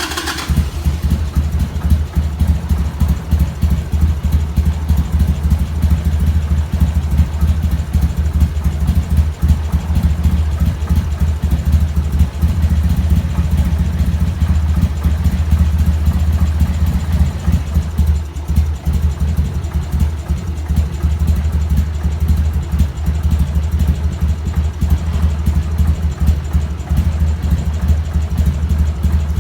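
An engine idling steadily, just after being started.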